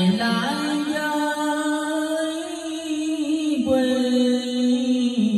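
A man singing karaoke in Vietnamese into a microphone, amplified through a home karaoke speaker system. He holds one long note for about three seconds, then slides down into a new held note.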